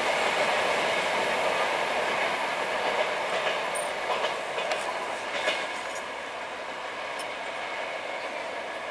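Gitanjali Express passenger coaches rolling along the track and away, a steady rumble and rattle of wheels on rail that slowly fades, with a few sharp clicks over the rails around the middle.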